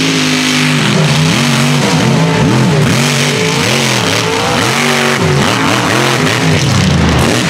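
Mega truck engines at full throttle racing in the dirt, among them a rat rod's supercharged big-block V8. The engine pitch rises and falls over and over, about every half second, over a loud hiss of spinning tyres and flying dirt.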